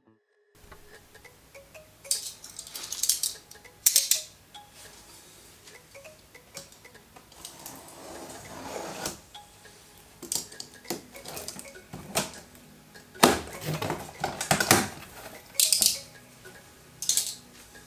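Handling noise of a cardboard box being held and set down on wooden slats: scattered taps, knocks, scrapes and rustles, starting about half a second in.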